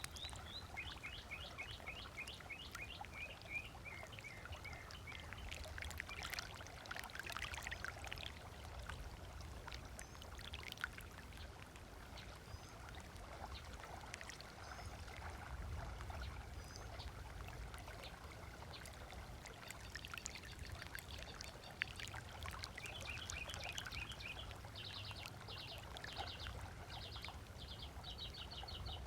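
Small waves lapping and splashing on a sandy lakeshore, with a bird giving rapid runs of short high chirps in the first few seconds and again near the end.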